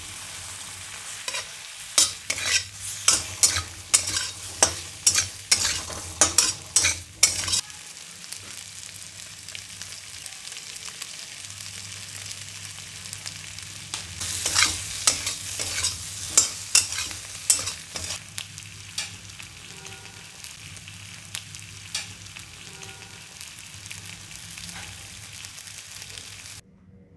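Stir-frying in a hammered steel wok: a flat metal spatula scrapes and tosses chicken momos, capsicum and onion over a steady sizzle. Quick spatula strokes come about twice a second for the first seven seconds and again in a burst around the middle, with a low hum underneath.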